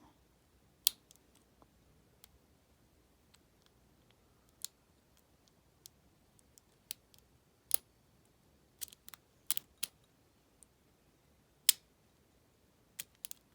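Lock pick and tension wrench working inside an Abus 74/40 lockout-tagout padlock: irregular sharp metallic clicks, about fifteen of them, a few louder than the rest.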